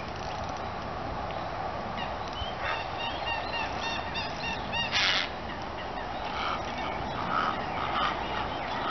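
Bird calls: a quick run of short, repeated pitched calls, then a brief loud rush of noise about halfway through, with a few more calls near the end over a steady background hiss.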